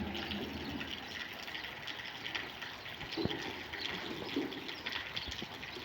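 Steady rain falling, with water splashing and running, heard as an even patter with many small drops.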